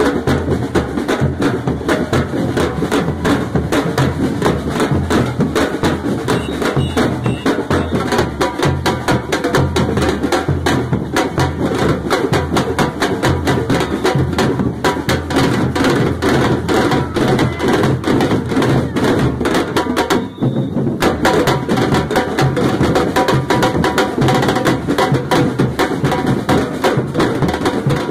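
Street percussion band playing a driving, even rhythm of drum strikes, with a large surdo-style bass drum beaten with a mallet under sharper, clicking hits. The playing dips briefly a little after twenty seconds, then carries on.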